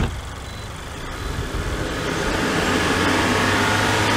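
A click, then the International semi truck's diesel engine turning over about a second in and settling into a steady, louder run as it starts on a jump from a car.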